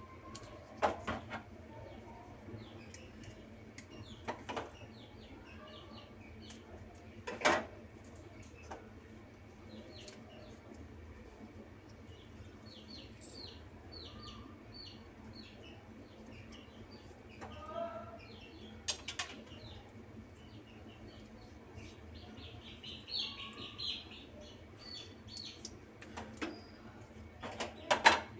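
Lemons pressed in a plastic hand squeezer over a ceramic bowl: scattered clicks and knocks, the loudest near the end. Birds chirp in short runs in the background.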